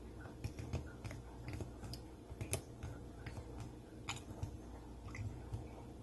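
Stainless steel pump on a glass soap-dispenser jar pressed down again and again, giving a string of faint, irregular clicks as the freshly filled pump primes until gel dish soap starts to drip out.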